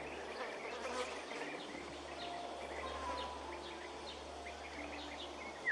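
Outdoor countryside ambience: a steady hiss of insects and air, with many small bird chirps scattered through it. A louder whistled bird call comes right at the end.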